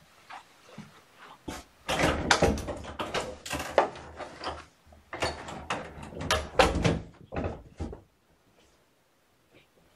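A door being handled and shut, with a run of knocks, clatter and rattling that stops abruptly about eight seconds in.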